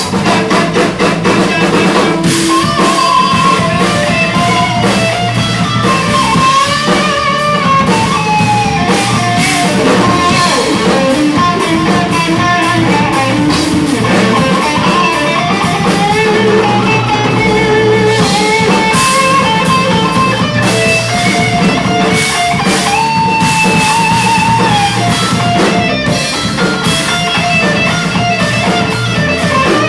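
Live rock band playing an instrumental passage: a guitar lead line with bending notes over bass and drum kit.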